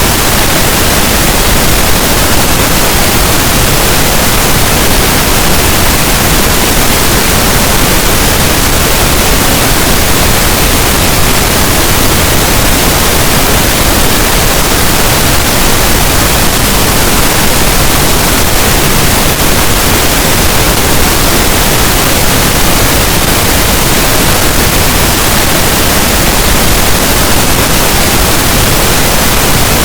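Loud, steady pink noise: an even, unchanging hiss spread across all pitches, with no tones or changes.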